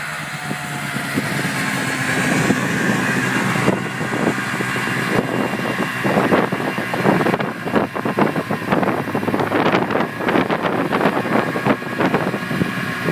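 Lynx Rave 670 snowcross snowmobile's two-stroke engine running under way, its pitch rising and falling in the first few seconds. After that the sound turns into a rough, uneven clatter of many irregular knocks, its loudness jumping about.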